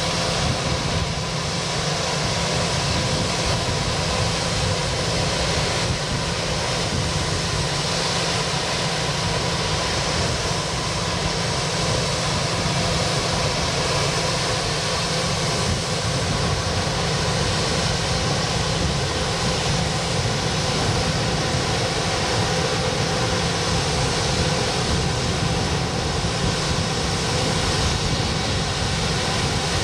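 Bombardier Global Express business jet standing with its engines idling: a steady drone with a few held tones over a low rumble.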